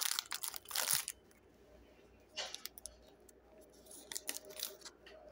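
Foil trading-card pack wrapper crinkling and tearing open in rough bursts during the first second. After that come a few brief rustles and clicks as the cards are handled, one about two and a half seconds in and several near the end.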